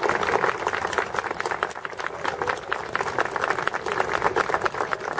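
Audience applauding, a dense patter of many hands clapping at once.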